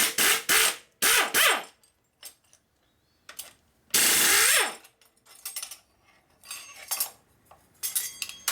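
Air impact wrench ('zip gun') hammering in short bursts on red-Loctited Allen bolts, breaking them loose with sudden shock loads. Several quick bursts come in the first second and a half and one longer burst about four seconds in, followed by light metal clinks of parts being handled.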